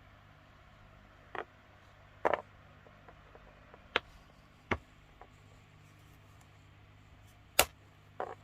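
Plastic Lego pieces being handled and pressed together: about six sharp clicks and taps at irregular intervals.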